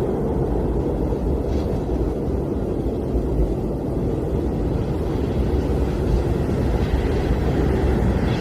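Blizzard wind blowing steadily, a deep, even rush of noise with little hiss above it.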